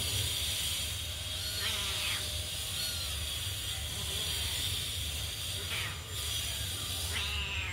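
Kittens mewing: a few short, high, falling cries, about a second and a half in, around three seconds, near six seconds and again near the end, over a steady high-pitched hiss.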